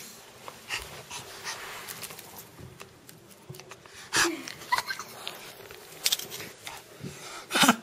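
A small dog breathing noisily through its nose at close range, in a few short bursts. The loudest burst comes near the end.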